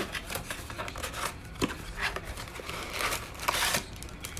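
Trading card packs and cards being handled: a sharp click at the start, scattered light clicks of cardboard cards, and a longer crinkle of a plastic pack wrapper about three seconds in.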